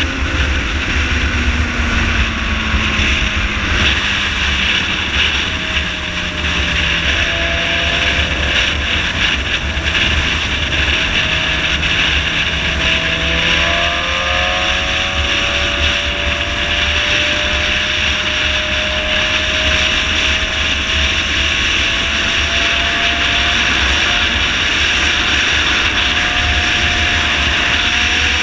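Wind rushing over the microphone with a motorcycle engine running underneath at highway speed; the engine note climbs gradually through the second half.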